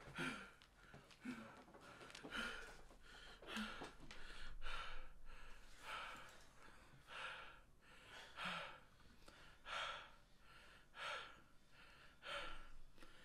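A man's faint, heavy breathing close to a microphone, about one breath every second, with gasps.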